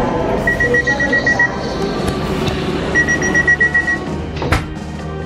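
Italo train door warning beeper sounding before departure: bursts of quick high beeps, each about a second long, repeating every two and a half seconds over a low hum, with a sharp knock near the end.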